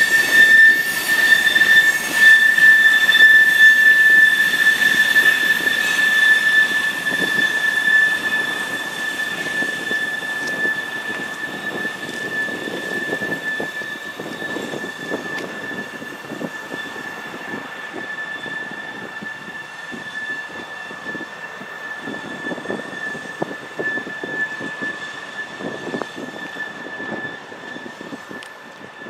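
Freight train rolling past with its wheels squealing on the curve: one steady high-pitched squeal over the rumble of the cars, fading gradually as the train moves away.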